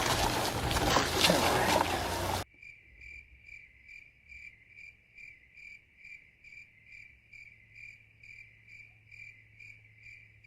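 A loud rushing noise cuts off about two and a half seconds in. Then a cricket chirps faintly and very regularly, about two chirps a second.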